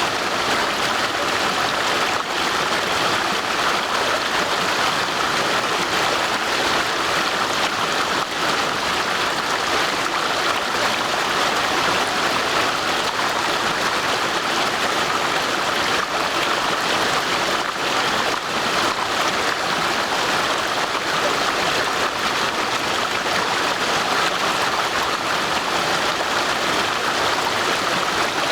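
Water of a brook rushing and gurgling steadily, an even unbroken wash of sound.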